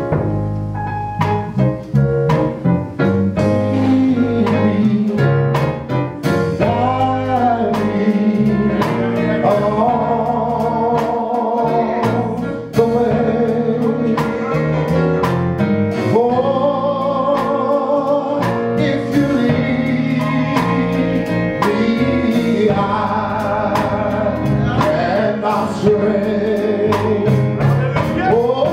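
A man singing a gospel song, accompanied by piano, electric bass and drums; the melody has long held notes with a wavering vibrato.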